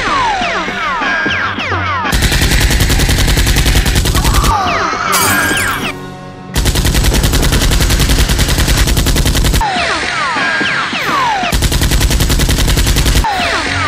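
Automatic gunfire sound effects in three long, rapid bursts, with short falling tones between the bursts, over background music.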